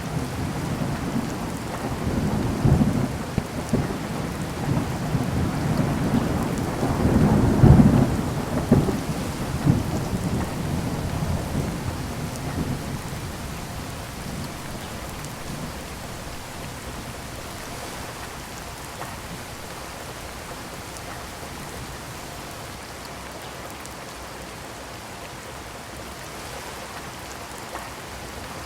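Heavy summer rain falling steadily, with a long roll of thunder that builds over the first few seconds, peaks about 8 seconds in, and rumbles away by about halfway, leaving only the steady rain.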